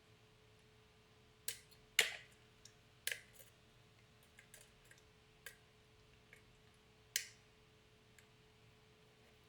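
Irregular sharp metallic clicks of a lock pick and tension wrench working the pin stack of a challenge lock, about eight of them and loudest about two seconds in. A faint steady hum lies underneath.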